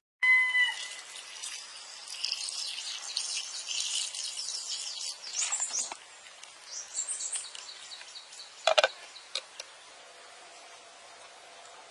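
Birds and insects chirping, busiest in the first half, with a single sharp knock about nine seconds in and a faint steady hum near the end.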